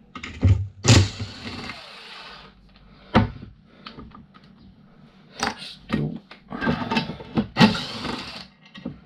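Hand tools and metal scooter parts knocking and clattering while an aluminium push scooter is taken apart. There is a sharp knock about a second in followed by a scraping hiss, another knock near three seconds, then a run of clanks and rattles in the last few seconds.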